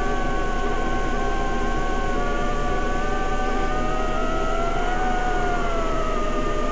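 DJI FPV quadcopter's motors and Master Airscrew propellers whining steadily in flight, several tones moving together; the pitch rises briefly about five seconds in, then eases back down as the throttle changes.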